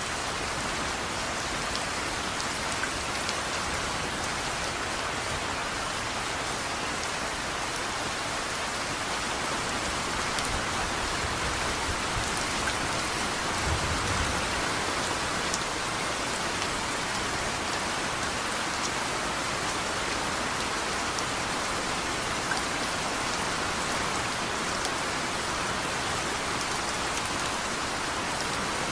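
Steady rain falling in an even hiss, with a brief low rumble about halfway through.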